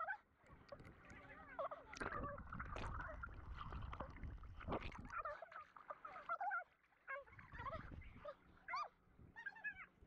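Voices played back at double speed, so they come out as high, squeaky, unintelligible chatter, over a low rumble of water and wind on an action-camera microphone.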